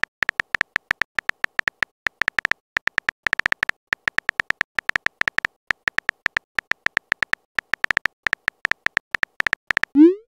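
Texting-app keyboard typing sound effect: a fast, slightly uneven run of short bright tapping beeps, about seven a second, one per letter typed. Near the end a short rising swoop, the app's message-send sound.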